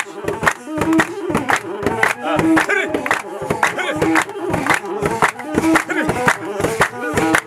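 Ethiopian folk dance music: a masenqo fiddle and a crowd singing, with hands clapping in a steady rhythm and a short phrase coming back about every second.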